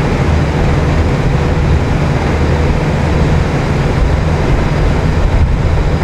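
Car ferry's engines running with a steady low drone, mixed with a rushing noise of wind and water.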